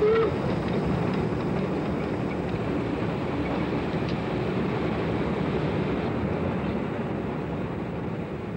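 Steam locomotive hauling a passenger train, its exhaust and running gear making a steady, dense rumbling noise. A brief high tone sounds right at the start.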